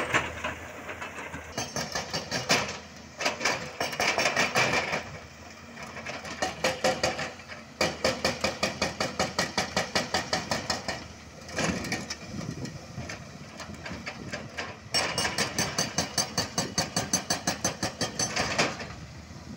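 Hydraulic breaker on a Volvo crawler excavator pounding rock with rapid, evenly spaced blows in several runs of a few seconds each. The excavator's diesel engine runs between the runs.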